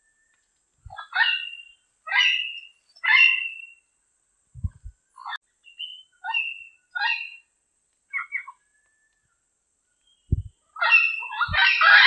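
Diademed amazon parrot calling: a string of short, harsh calls about one a second, then near the end a dense run of loud overlapping calls.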